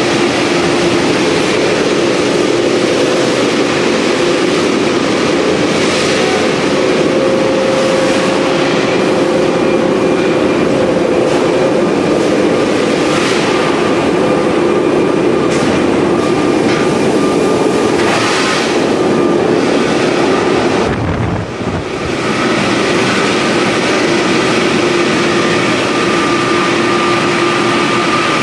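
Loud, steady din of steel rolling mill machinery, a dense roar with a steady hum and a few higher tones running through it, dipping briefly about three-quarters of the way through.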